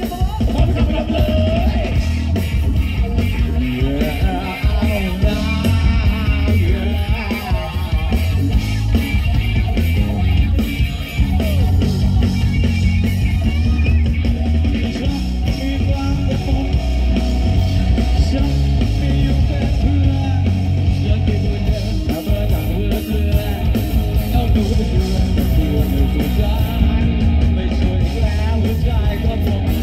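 Rock band playing live through a PA: electric guitar, electric bass and keyboard in a dense, loud mix with a heavy bass end, and a male singing voice over it.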